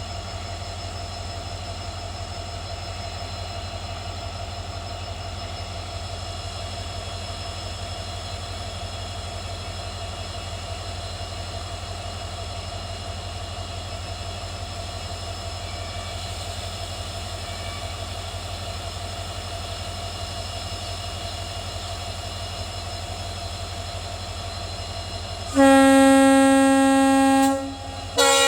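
Twin WDP4D diesel locomotives humming steadily, their 16-cylinder EMD two-stroke engines running with a deep rumble and a few steady tones. Near the end the locomotive horn gives a loud blast of about two seconds, cuts off, and a second blast begins.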